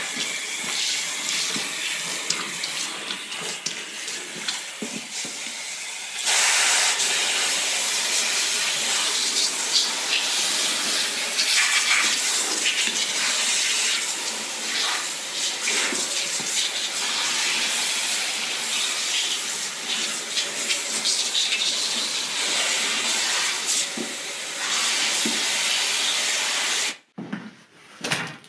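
Water spraying onto a small soaked rug, splashing under rubber boots treading it in the first seconds; the hiss of the spray grows louder about six seconds in. Near the end it cuts off abruptly, leaving a few brief brushing sounds on the dry rug.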